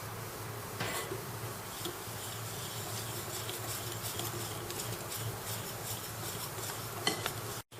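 A utensil stirring chocolate cake batter of flour, cocoa and milk in a bowl: a steady run of soft scrapes and light clicks against the bowl. The sound cuts out for an instant near the end.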